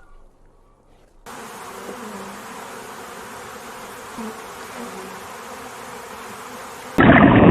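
A steady buzzing hum of insects over an even hiss, starting about a second in. Near the end a much louder sound cuts in abruptly.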